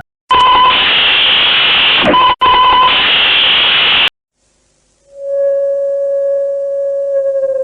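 Mock emergency-alert audio: a harsh burst of loud static with steady tones in it, briefly broken once, that cuts off suddenly. About a second later a steady siren-like tone with overtones starts and begins to slide down in pitch near the end.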